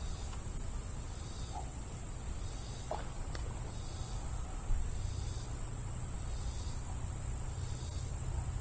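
Summer insects chirring: a steady high buzz with a pulsing chorus beneath it that swells about once a second, over a low rumble, with a small knock about halfway.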